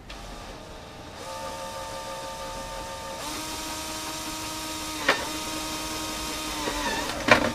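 Cordless drill/driver motor whining as it drives a screw through the ear cap into the plastic helmet. The whine shifts pitch twice, has a sharp click about five seconds in, sags slightly as the screw seats, and stops with a loud knock near the end.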